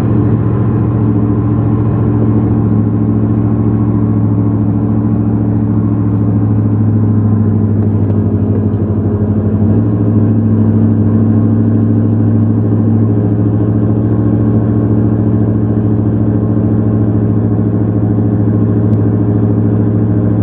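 Pickup truck driving, heard from inside the cab: a loud, steady engine and road hum, with a brief change in the engine note about halfway through.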